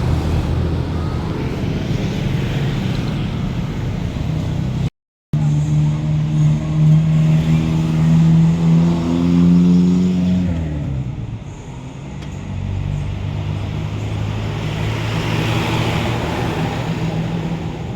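Large bus engine running, then a short cut to silence. After it a bus passes close while accelerating, its engine note rising, then dropping sharply as it goes by, leaving steadier engine noise behind.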